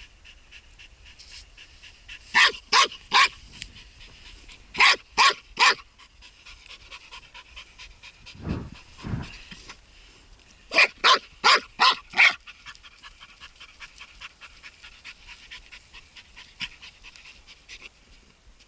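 A laika hunting dog panting close to the microphone in three bursts of quick, sharp breaths, about two and a half a second, with two low muffled sounds near the middle and faint breathing in between.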